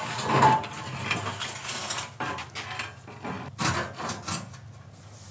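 Aluminum sliding-door frame being tilted up and set into a concrete-block opening: the metal frame scrapes and rubs, with a few light knocks and clatters partway through.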